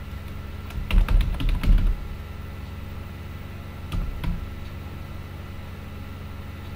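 Typing on a computer keyboard: a quick run of about seven keystrokes about a second in, then two more keystrokes a few seconds later.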